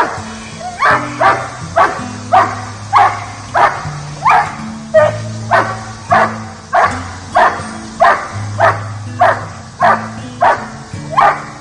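Young German Shepherd barking steadily and forcefully at a helper during Schutzhund protection work, about three barks every two seconds without a break. Background music with low held notes underneath.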